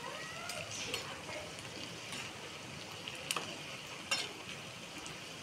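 Ridge gourd pakoras sizzling as they deep-fry in hot oil, with a metal slotted skimmer clinking sharply against the pan a few times as they are turned.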